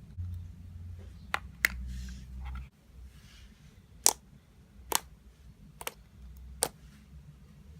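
Basic slime being squeezed and stretched by hand, giving sharp clicks and bubble pops, about six of them spaced roughly a second apart.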